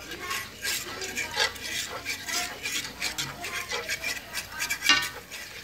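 A utensil stirring and scraping flour and grease in a cast-iron skillet to make a roux for gravy: a quick, irregular run of scrapes against the pan, with one louder scrape near the end.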